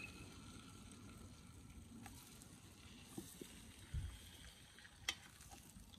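Floured lamb shanks sizzling faintly in hot oil in a cast-iron camp oven. The metal tongs knock against the pot about four seconds in, with a sharp click about a second later.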